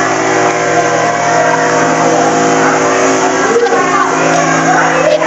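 Pressure washer running with a steady motor hum while its spray hisses on a tiled floor.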